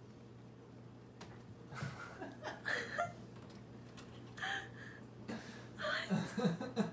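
A person laughing quietly in several short breathy bursts while a cat plays on a cat tree, over a steady low hum.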